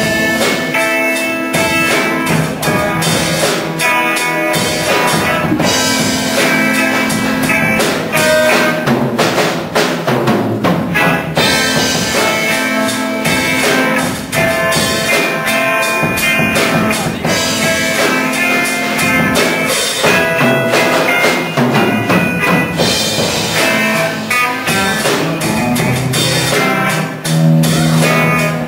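A band playing with guitar and drum kit, an instrumental stretch without singing.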